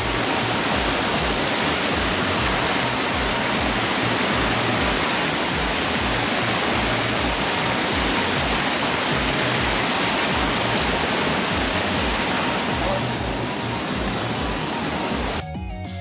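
Steady rush of running water filling the sound, with a regular low beat of background music underneath. Near the end the water sound cuts off suddenly and the music carries on alone.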